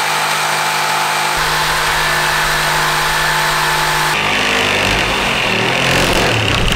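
Electric jigsaw cutting through a 12 mm plywood sheet, running steadily throughout, its tone shifting about a second and a half in and again about four seconds in.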